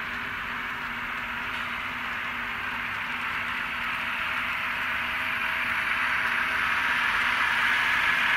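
N scale model freight train running along the track: steady wheel-on-rail running noise mixed with sampled GE Tier 4 GEVO diesel engine sound from an ESU LokSound sound decoder, played through the model's small speaker. The sound grows louder over the last few seconds.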